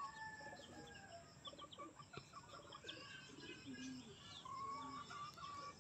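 Faint bird calls: scattered short chirps, with chickens clucking.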